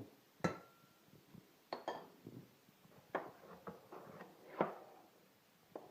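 A teaspoon clinking and scraping against a dish while a teaspoon of butter is added to milk. There is a sharp clink with a short ring about half a second in and two more ringing clinks around two seconds, followed by several softer scrapes and knocks.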